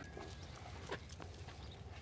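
Faint footsteps: a few irregular taps over a low, steady rumble.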